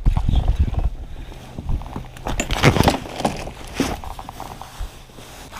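Handling noise inside a plastic kayak: irregular knocks and rustles of gear and clothing against the hull and cockpit, close to a chest-mounted microphone.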